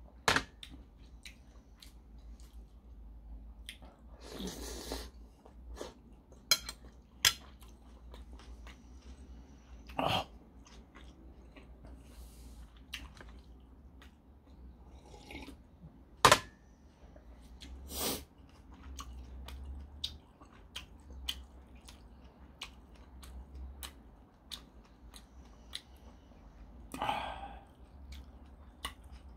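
A person eating a bowl of spicy ramen noodles: chewing and sips from a mug, broken by a dozen or so sharp clinks of spoon, mug and dishes.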